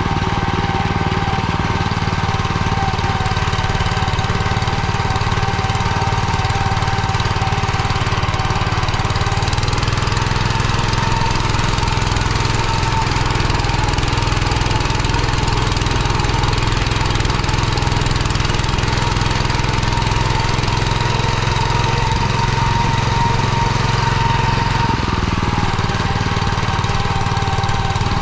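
MTZ-09N walk-behind tractor's single-cylinder petrol engine running steadily under load as it pulls its trailer along a dirt track, heard from the driver's seat close to the engine.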